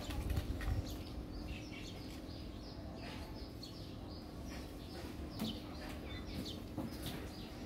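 Small birds chirping: a run of short, falling chirps, several a second, with a low rumble during the first second.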